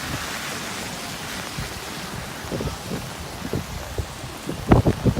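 Heavy wind-driven rain, a steady hiss, with storm-wind gusts rumbling on the microphone. A few sharp thumps near the end.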